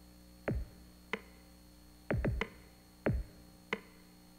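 Sparse electronic drum hits opening a film trailer's music: about six deep booms, each dropping in pitch, spaced unevenly, over a faint steady hum.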